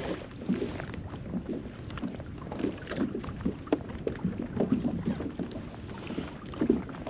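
Small waves lapping and slapping irregularly against a kayak hull, with a light rumble of wind on the microphone.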